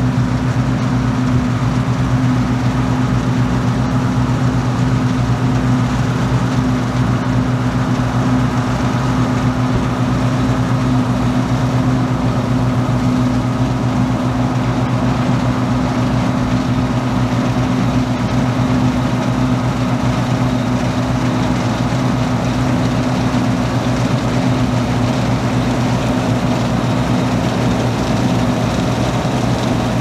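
John Deere 1188 combine harvester running steadily under load while cutting and threshing wheat: a continuous engine and threshing-drum drone with a strong low hum.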